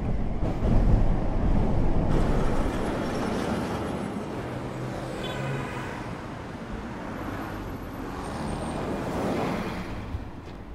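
Rumble of city traffic, loudest at the start and easing off, with a brief squeal about five seconds in.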